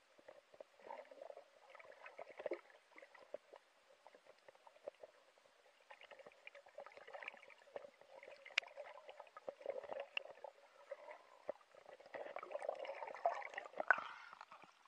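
Muffled water sound picked up by a camera held underwater: faint gurgling and a low hum, with scattered small clicks and knocks. It grows louder near the end as the camera nears the surface.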